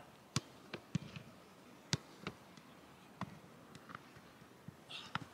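Footballs being kicked during a pre-match warm-up: a series of sharp thuds at irregular intervals, about seven of them.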